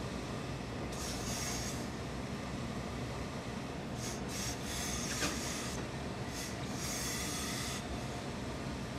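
Tailor's steam iron letting out about four short hisses of steam as it presses a suit jacket's hem, over a steady low hum.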